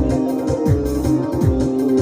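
Instrumental band music with sustained electronic melody notes over a steady beat, each deep bass thump falling in pitch, repeating about every half second.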